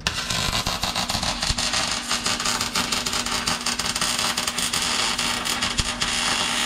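MIG welder laying a bead on sheet steel, where the new heater channel lip meets the crossmember: a steady, dense crackling sizzle from the arc that starts abruptly, with a faint steady low hum beneath it.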